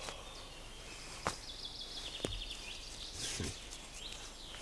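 Quiet forest background with a small bird singing a short, high trill of repeated notes and a few chirps, and two faint sharp clicks about a second apart.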